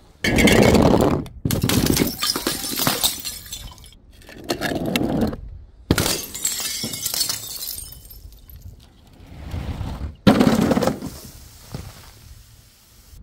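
Glass bottles shattering one after another: about four sudden crashes, each trailing off into tinkling shards, the loudest at the start and another sharp one near the end.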